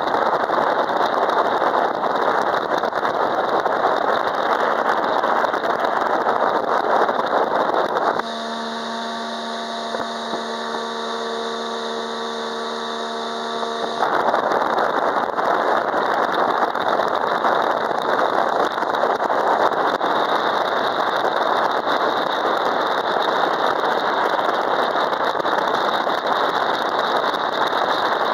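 Speedboat under way: a loud rushing of wind and water over the engine's drone. For about six seconds in the middle, starting about eight seconds in, the rush cuts out abruptly, leaving a quieter, steady engine hum with a clear pitch, before the loud rush returns just as suddenly.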